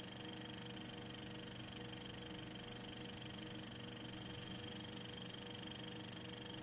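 Faint steady background hiss with a few faint steady hum tones underneath, with no distinct sound events.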